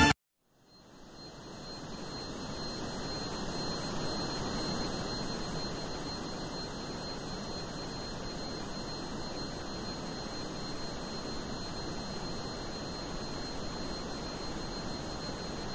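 Music cuts off abruptly, and after a moment of silence a steady hiss-like noise fades in and holds, with faint thin high-pitched tones running over it.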